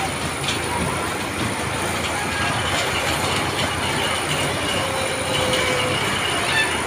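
Octopus fairground ride running: a steady mechanical rumble and rattle as its arms spin the cars.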